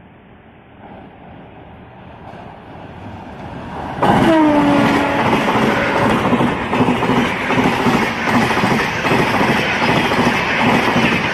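Indian Railways express passenger train hauled by an electric locomotive: a rumble building as it approaches, then a sudden loud arrival about four seconds in as it passes close by, with its horn dropping in pitch. The coaches follow with a steady rhythmic clatter of wheels over the rail joints.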